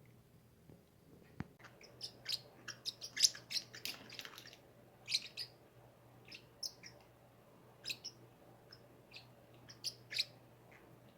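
Pet parrots chirping in short, sharp calls: a quick flurry about two seconds in, then scattered single chirps.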